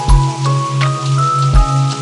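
Ambient music with held keyboard notes that step from pitch to pitch, layered with a rain recording of steady patter and scattered drop clicks. A low hum pulses several times a second, and a deep thump falls twice.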